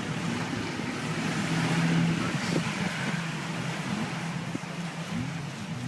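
A car or truck driving: steady engine and road noise with a low steady hum.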